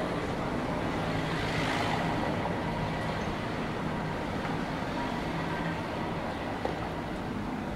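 City street traffic: a steady hum of motor vehicles, swelling as one passes about two seconds in.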